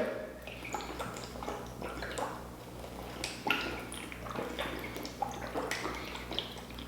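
A person eating seafood boil close to the microphone: wet chewing and mouth sounds, with many small scattered clicks and squishes.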